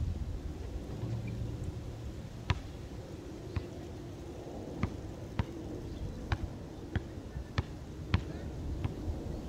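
Basketball bouncing on a concrete court: a single bounce about two and a half seconds in, then a run of dribbles at roughly one every half to two-thirds of a second.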